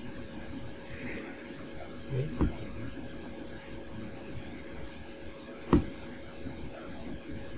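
Steady whir of a grandMA1 lighting console's cooling fans, with two sharp taps of a finger on its touchscreen, the first about two and a half seconds in and the second near six seconds in.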